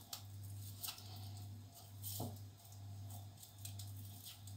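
Faint rustling and light ticking of raffia being wrapped and pulled around a wire frame by hand.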